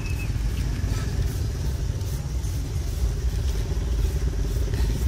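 A small engine running steadily, a low pulsing rumble, with faint scraping strokes of green papaya being shredded by hand.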